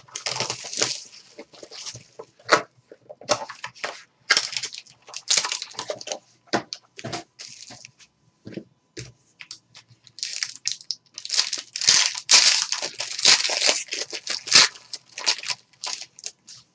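Plastic shrink wrap and foil wrapping on a box of 2014 Panini Limited football cards being torn open and crinkled by hand, in irregular crackling bursts that grow denser and louder about ten seconds in.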